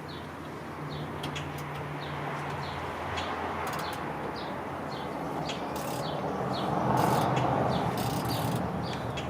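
Small birds chirping again and again, in short falling chirps, over a steady low hum and background noise.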